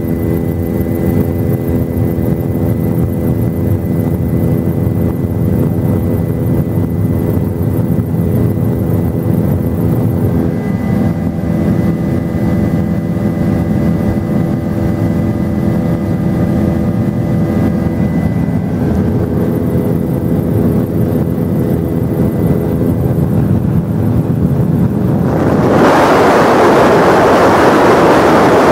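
Helicopter heard from inside the cabin in steady flight: a loud, even engine and rotor drone with a steady whine of several tones over it. About 26 seconds in it changes suddenly to a louder, rushing wind noise.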